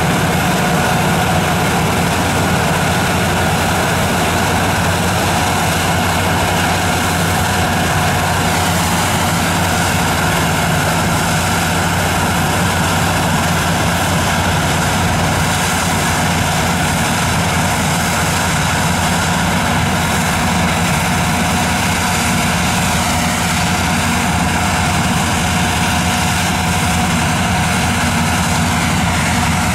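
Don-1500 combine harvester running steadily while harvesting grain: a continuous engine drone with several steady higher machine tones layered over it.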